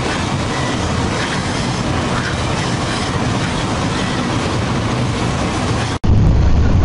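Steady rushing wind and road noise in a moving car with the window open, the wind buffeting the microphone. About six seconds in it breaks off sharply and gives way to a louder, deeper rumble of wind and road noise.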